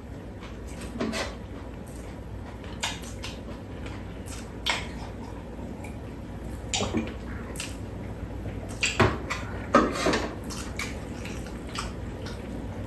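Scattered light clinks and knocks of mugs and food being handled on a round metal serving tray during a meal.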